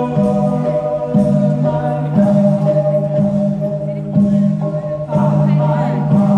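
A group singing a song together over an electronic keyboard accompaniment, with held low notes that change about once a second.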